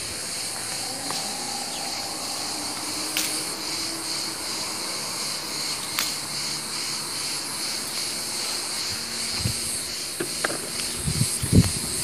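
A steady, high-pitched chorus of insects buzzing, with a few low thumps near the end.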